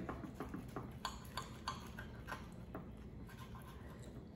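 Knife and fork cutting through a fried chimichanga on a ceramic plate: irregular light clicks and taps of the metal cutlery against the plate.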